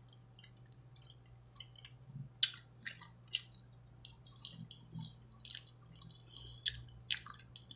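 Close-up mouth sounds of someone chewing food: soft wet clicks and smacks, with several sharper ones from about two and a half seconds in, over a faint steady low hum.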